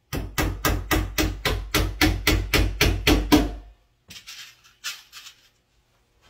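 Small claw hammer driving nails through a backer board into a wooden shelf frame: about a dozen quick, even blows, roughly four a second. A few softer, shorter noises follow about four seconds in.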